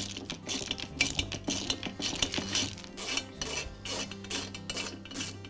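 Screwdriver turning out the muffler screws on a backpack leaf blower's engine: irregular metallic scraping and clicking, several a second, over faint background music.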